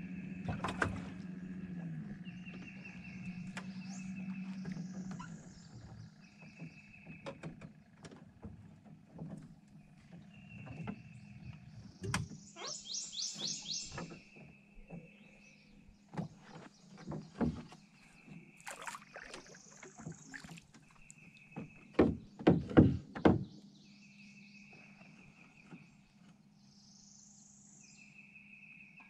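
Birds singing, one repeating a short buzzy phrase every few seconds, each followed by a higher slurred note, and a rapid high trill about twelve seconds in. Scattered clicks and knocks, loudest a quick cluster of sharp knocks about twenty-two seconds in, and a low steady hum during the first five seconds or so.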